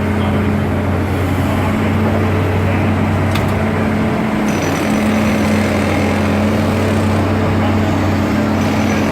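Diesel engines of working excavators running with a steady low drone, with a single brief click about three and a half seconds in.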